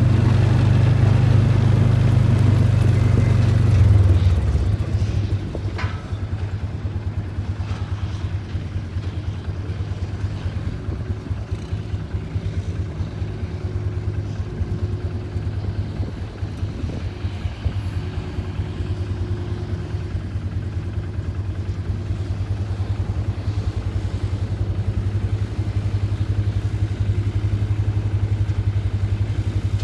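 Farm tractor engine running steadily, louder for the first four seconds or so, then settling to a lower, even level.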